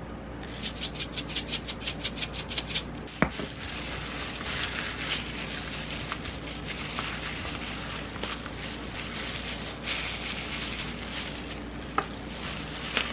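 Plastic-gloved hands mixing and squeezing rice with seaweed flakes and mayonnaise in a plastic bowl: a scratchy rustle of glove plastic rubbing on rice and bowl. It opens with a fast run of light ticks over the first couple of seconds and a single click.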